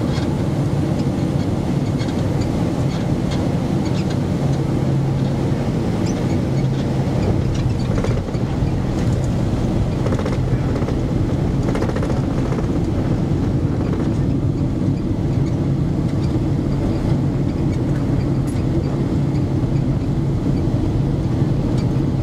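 Steady cabin noise of a Boeing 767-300 rolling on the ground after landing, heard from a window seat over the wing: the engines running at low power under the rumble of the airframe, with a steady low hum throughout.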